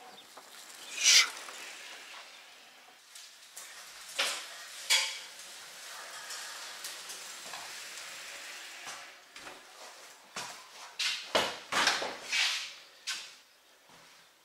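Bicycle being ridden over grass and into a shed: tyre noise with a few short bursts of clattering and scraping, the loudest about a second in and a cluster near the end.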